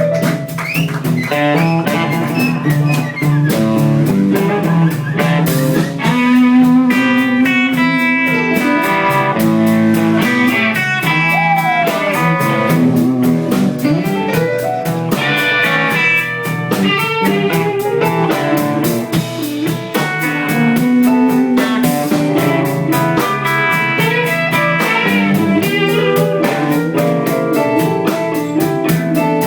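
Live blues band playing an instrumental passage: a lead guitar picks a solo full of bent, sliding notes over a steady drum kit beat and a low accompanying line.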